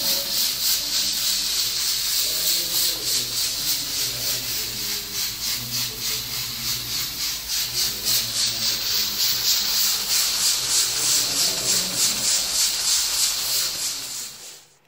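Aluminium pressure cooker on a gas burner venting steam from its weight valve under pressure: a loud, steady hiss that pulses rapidly and evenly. It cuts off sharply near the end.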